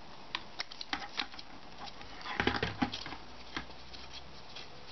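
Small scattered clicks and taps of a metal spanner and plastic propeller as a propeller is unscrewed from an MJX Bugs 3 quadcopter's motor shaft, with a quick cluster of louder clicks about halfway through.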